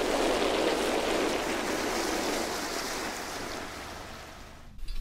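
Water splashing and pouring in a steady rush as a flooded dinghy is bailed out. It fades gradually and cuts off abruptly near the end.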